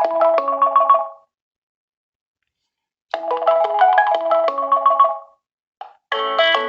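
A Nokia 1.3 smartphone ringtone: a short melody of quick pitched notes that stops about a second in and, after about two seconds of silence, repeats the same phrase. Near the end a different, fuller ringtone melody starts.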